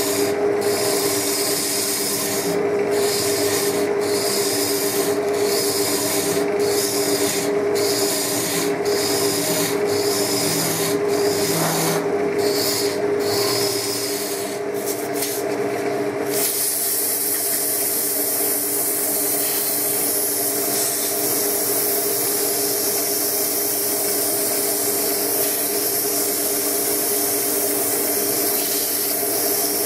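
Wood lathe running with a steady hum while a gouge cuts the inside of a spinning wooden top, scraping in strokes with short breaks about once a second. About halfway through the cutting stops and sandpaper is held against the turning wood, giving an even, unbroken hiss.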